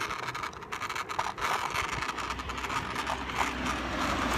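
Ripstick wheels rolling on a concrete sidewalk, with a steady scraping rush and short clicks as they cross the joints, while a car drives by close alongside, its low rumble growing about halfway through.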